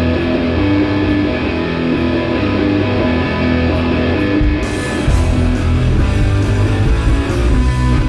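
Background music led by guitar, getting fuller and louder about two-thirds of the way in.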